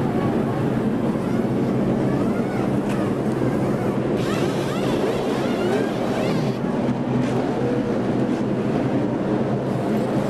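A field of NASCAR Truck Series V8 race trucks running on track: a dense, steady engine noise with individual engines sweeping up and down in pitch as they pass.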